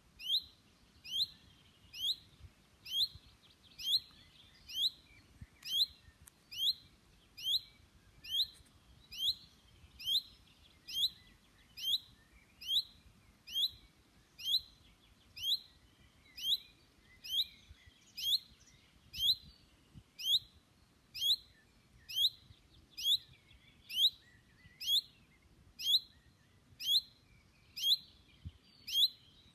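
Chaffinch calling: one short, falling note repeated evenly, about three calls every two seconds, on and on without change.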